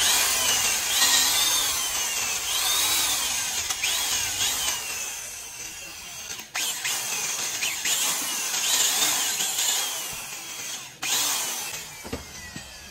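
Power tool cutting metal: a steady, hissing cutting noise with repeated short rising-and-falling squeals, broken by two brief clicks and growing quieter near the end.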